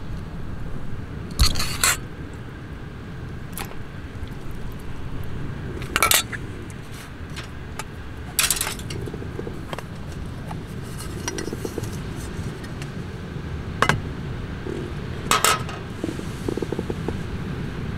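Metal cookware clinking and scraping as a stir-fry is served from a pan into a bowl: about six short clinks and scrapes spread out, over a steady low rumble.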